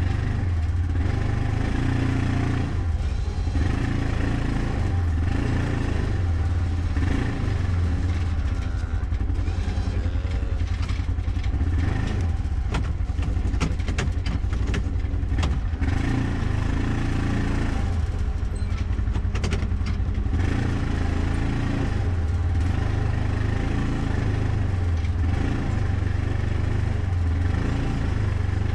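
Side-by-side UTV engine running steadily at low speed as it creeps forward, with a run of light clattering clicks around the middle.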